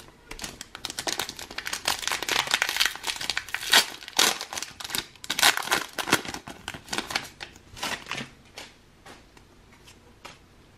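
Foil wrapper of a trading-card booster pack crinkling and tearing as it is opened by hand, a dense crackle that thins to a few scattered crinkles after about eight seconds.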